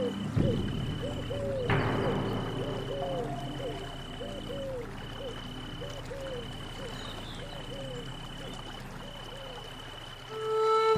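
Night forest soundscape: an animal's short rising-and-falling calls, about two a second, over a high trill that repeats in regular pulses. The rush of a waterfall comes in about two seconds in. Soft music swells back in near the end.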